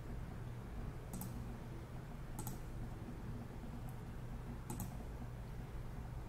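Computer mouse clicking four times, about a second or so apart; most clicks are a quick double tick of press and release. Under them runs a steady low hum.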